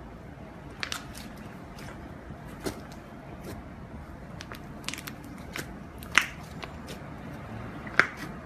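Homemade slime being pressed and worked by hand, giving scattered small crackles and clicks, with two sharper pops about six and eight seconds in.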